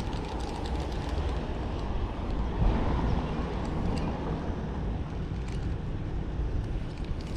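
Road traffic passing nearby: a steady low rumble that swells about three seconds in, with faint scattered clicks.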